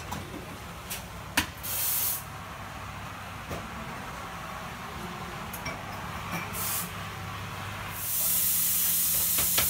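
Espresso machine steam wand hissing in short bursts, then a longer, louder burst of about two seconds near the end. A few sharp clicks come in between.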